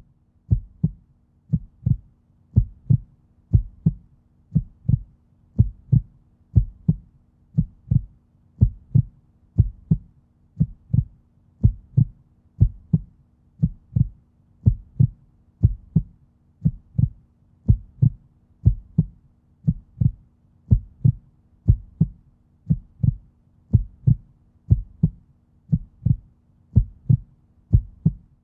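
A steady, evenly spaced low thumping pulse like a heartbeat, about one and a half beats a second, over a faint steady low hum, laid on as a soundtrack under the graphics.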